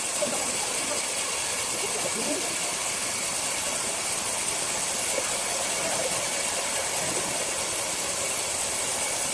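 Large sawmill circular saw running: a steady, loud hiss with a faint steady whine in it.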